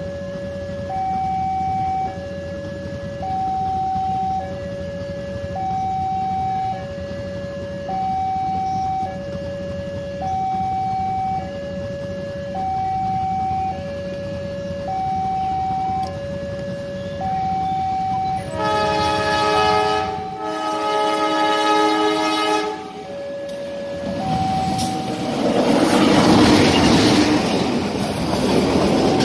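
Railway level-crossing warning alarm sounding two alternating tones, each held about a second. About two-thirds of the way in a train horn gives two long blasts, and near the end a passenger train passes close by with a loud rush of wheels on rails.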